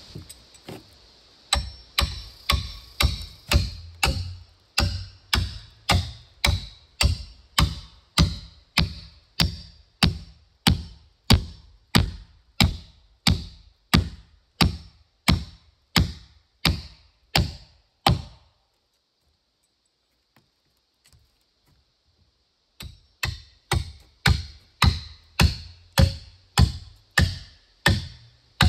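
Evenly spaced sharp knocks, a little under two a second, each dying away quickly; they stop for about four seconds two-thirds of the way through, then start again at the same pace.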